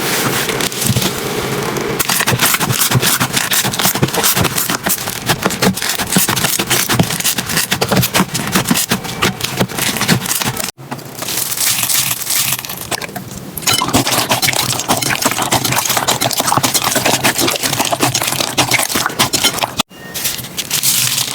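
Slime being squeezed and pressed by hand close to the microphone, making dense, rapid crackling and popping clicks. The sound breaks off briefly about eleven seconds in and again near twenty seconds, where a new clip starts.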